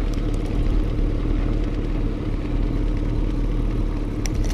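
Boat's outboard motor running steadily at trolling speed, a constant engine drone, with a couple of sharp clicks near the end.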